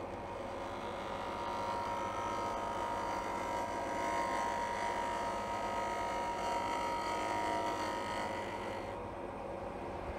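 Wood lathe running steadily with a motor hum while a freshly sharpened bowl gouge cuts the spinning pine blank, a scraping hiss over the hum; the cutting noise stops about nine seconds in, leaving the lathe's hum.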